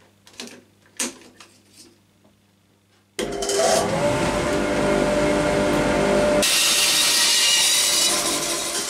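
A few light clicks and knocks, then an Elektra Beckum band saw switches on suddenly about three seconds in and runs steadily. In the last seconds it turns hissier as the blade rips a wooden board lengthwise.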